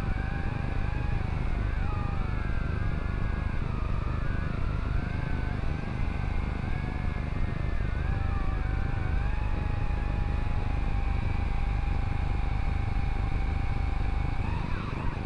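Drone's motors and propellers heard through its onboard camera: a whine in several pitches that slide up and down as the rotors change speed, over a heavy low rumble. The whine settles to a steady pitch about two-thirds of the way in, with a short rising sweep near the end.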